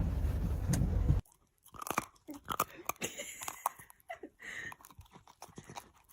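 A dog chewing and crunching, a quick irregular series of short crunchy clicks. It follows a steady low rumble that cuts off about a second in.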